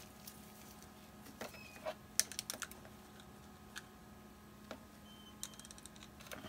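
Scattered light clicks and taps of a paint cup and a metal chain being handled, with a quick run of rattling clicks about five and a half seconds in, over a faint steady hum.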